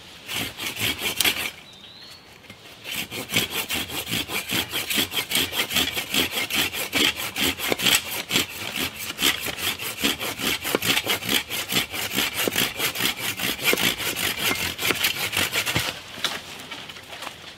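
A hand pruning saw cutting through a thin green sapling near its base with quick back-and-forth strokes. A short burst of strokes comes first, then a pause, then steady rapid sawing that stops shortly before the end.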